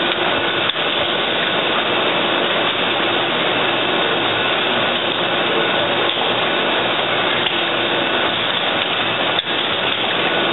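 Automatic hypodermic needle assembly machine running: a steady, dense mechanical noise with a faint steady whine, broken by a sharp click or two.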